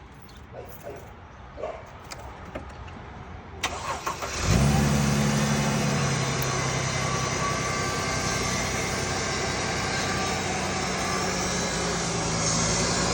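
A few light clicks, then the starter cranks briefly and the Mercedes-Benz GLK 350's 3.5-litre V6 catches about four and a half seconds in, flares and settles into a steady idle. This is the engine's first start on new spark plugs and ignition coils, fitted to cure a cylinder 2 misfire.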